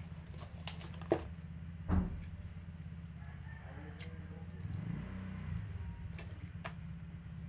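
Eating sounds: a metal fork knocking and clicking against a cardboard meal box, with two sharp knocks about one and two seconds in, over a steady low hum.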